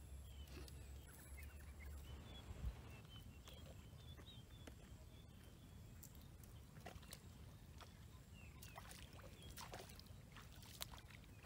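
Faint splashing and sloshing of bare feet wading through shallow muddy water, with small birds chirping faintly throughout. A single thump stands out about a quarter of the way in, and there is a low rumble of wind early on.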